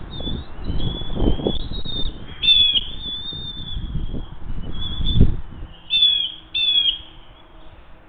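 Hungry bald eagle eaglets making high, thin, whistled begging calls, with sharper squeals about two and a half seconds in and twice more around six seconds in. Low thumps and rustles come from movement in the nest.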